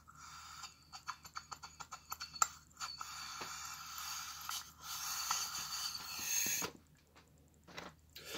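Water bubbling in a glass bong as a hit is drawn through it: a run of quick pops, then a steadier bubbling that stops about two-thirds of the way in.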